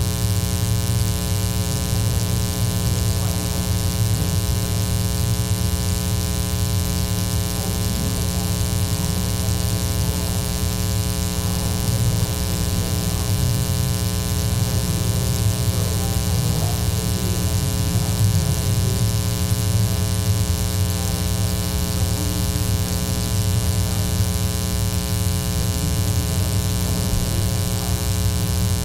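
Loud, steady electrical mains hum and buzz, a dense stack of evenly spaced overtones. Faint voices lie buried beneath it.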